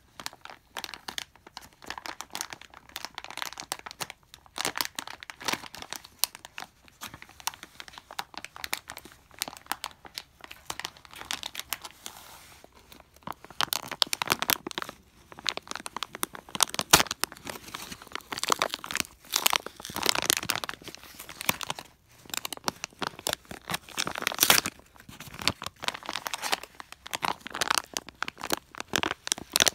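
Thin clear plastic toy packaging bag crinkling and tearing as it is pulled open by hand, in irregular crackles that grow louder in the second half.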